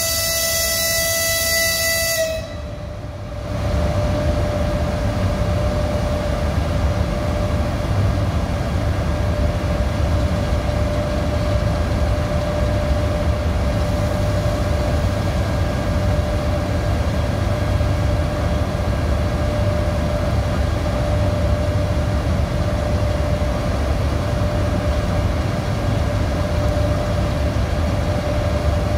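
Locomotive horn sounding a held chord of several steady notes, cutting off about two seconds in. About a second later a steady low rumble with a faint steady whine starts up from the train's locomotive machinery and runs on.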